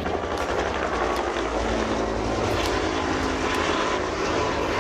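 Propeller-driven aircraft engine running steadily with a continuous drone.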